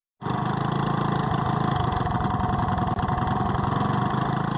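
Small single-cylinder go-kart engine running at a steady speed, its firing heard as a fast, even pulsing. It starts abruptly, with a brief dip about three seconds in.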